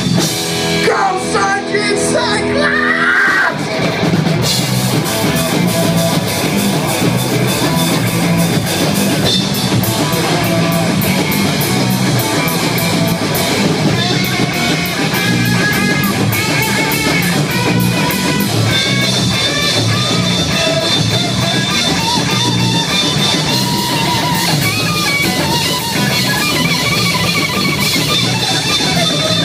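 Live punk-metal band playing electric guitars through amplifiers, with a drum kit. A few held notes ring at the start, then the full band comes in together about four seconds in and plays on steadily.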